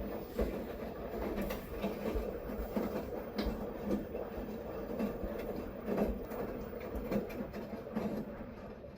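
Washing machine in its wash phase: the drum turning the load through the water with a steady sloshing rumble and a low thump about once a second.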